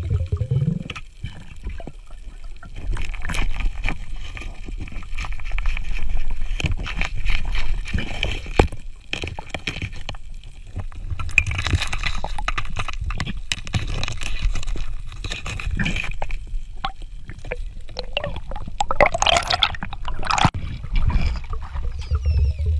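Underwater recording of air bubbles gurgling past the microphone, with a low rumble and many short clicks and knocks; a louder hissing rush of bubbles comes near the end.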